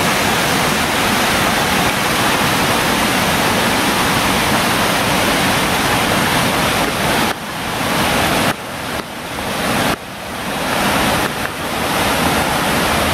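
Whitewater cascade of a mountain creek rushing loudly and steadily over boulders. In the second half the rush drops off suddenly four times and swells back each time.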